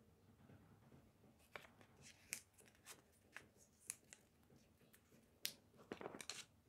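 Faint, scattered crinkles and ticks of a small paper slip being folded by hand, with a denser rustle near the end as the hand goes into a cardboard box.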